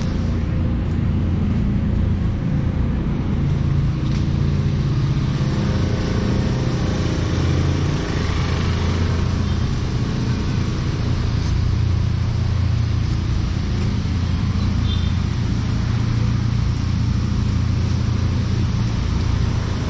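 Street traffic: vehicle engines running, with a steady low hum throughout.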